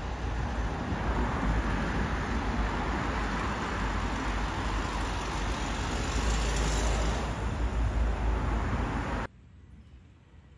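Road traffic noise: cars driving past, a steady rush of tyre and engine noise that swells a little as more cars pass, then cuts off suddenly about nine seconds in, leaving only faint outdoor background.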